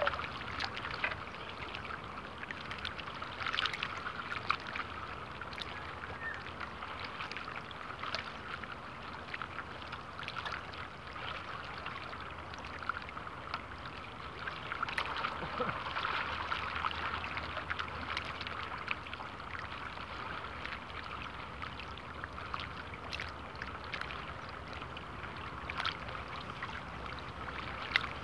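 Small ripples lapping and trickling at the water's edge, a steady soft wash with many tiny clicks and splashes.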